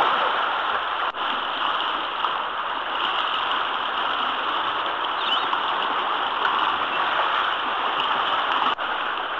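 Continuous splashing and rushing water echoing around an indoor swimming pool as a playboat kayak is paddled and spun hard, its hull and paddle churning the surface. The noise drops out for an instant twice, about a second in and near the end.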